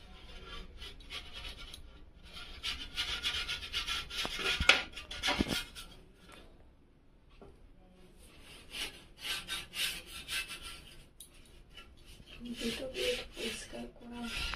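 Small hand brush scrubbing caked dust off a ceiling-fan blade in quick, repeated scratchy strokes, in two spells with a pause between, with a couple of sharp knocks in the first spell.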